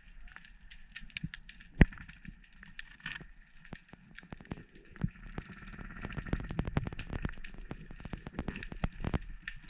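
Underwater crackling: a dense, irregular stream of small clicks and snaps, thicker in the second half, with one sharp, loud click a little under two seconds in.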